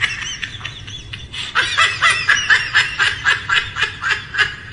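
High-pitched laughter in a quick run of short laughs, about four a second, getting louder about a second and a half in.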